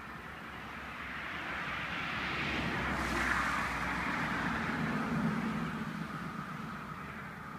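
A vehicle passing by: a broad rushing noise that swells over a few seconds, peaks midway, then fades away.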